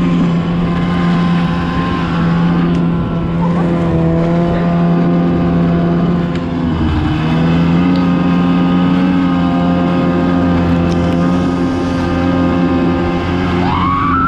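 Snowmobile engine running under way across snow at a steady pitch. About halfway through it eases off for a moment, then picks back up a little higher.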